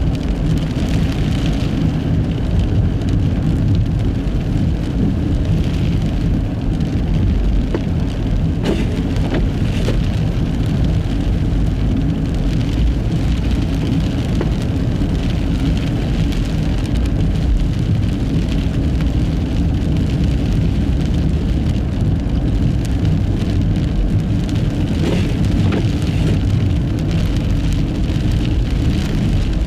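Steady road noise of a Nissan Fuga Hybrid driving on a snow-covered road in a blizzard: a continuous low rumble from its studless tyres on the snow, with a fainter hiss of wind and snow above it.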